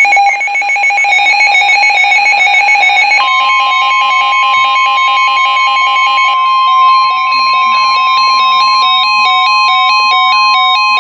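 Emergency alert tones: a rapid, chopped two-tone electronic warble, then about three seconds in a steady high alarm tone starts, the NOAA Weather Radio warning alarm tone. A stepping pattern of electronic beeps that rise and fall in pitch plays over it.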